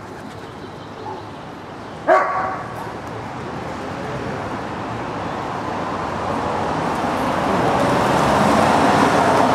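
A dog barks once, loudly, about two seconds in. After it, road traffic noise grows steadily louder.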